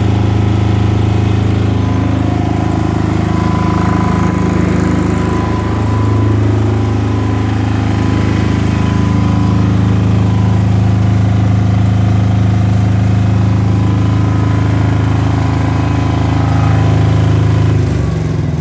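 Engine of a silent-type 10 kVA three-phase generator set (1100F engine) running steadily on test with a strong low hum. Near the end its note changes and breaks up as it is shut down.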